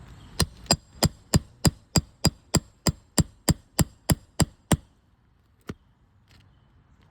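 Roofing hammer striking a steel nail puller in quick, even blows, about three a second, some fifteen in a row with a light metallic ring, then one more strike a second later: driving the puller under a roofing nail to remove it.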